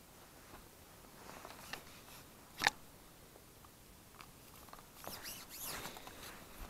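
Faint handling sounds of an angler baiting the hook and picking up a carbon fishing pole: light scratching and rustling, one sharp click a little under three seconds in, and a longer rustle of clothing and pole near the end.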